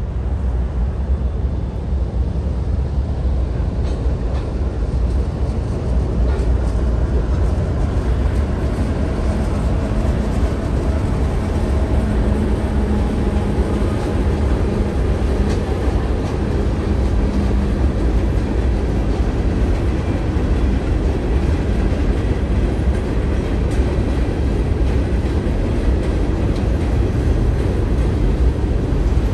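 CSX freight train behind GE ES44DC and AC44CW diesel locomotives rumbling steadily across a steel trestle bridge. It gets louder about six seconds in, with a low engine hum strongest in the middle as the locomotives pass. Then comes a long run of freight cars with the clicking of wheels on rail joints.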